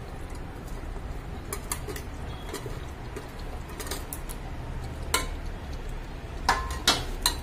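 A steel plate and spoon clinking and scraping against an aluminium pressure cooker as raw chicken pieces are tipped into the masala. There are a few sharp clinks, the loudest coming near the end, over a steady low hum.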